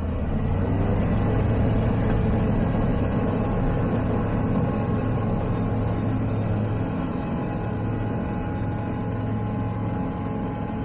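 Zenith CH 701 STOL's 100 hp ZD C100 engine, a Rotax 912ULS clone, with its propeller, coming up to full takeoff power in the first second and then running steadily through the takeoff roll and lift-off.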